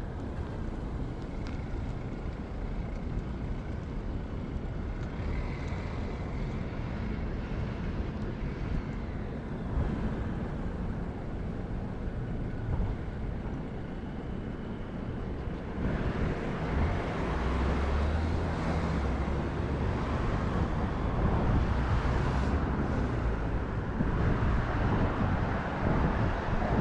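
City street ambience: passing car traffic with wind rumbling on the microphone, louder from about halfway through.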